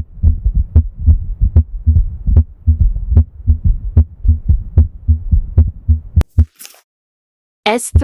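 Normal heart sounds heard through a stethoscope: a steady, repeating lub-dub of the first and second heart sounds (S1–S2) with no added sounds. The beats stop a little after six seconds and a short whoosh follows.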